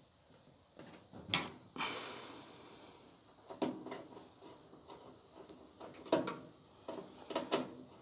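Knocks and clatter of a clothes dryer's panels being handled and fitted back together, with a sliding scrape about two seconds in and a few sharper knocks later.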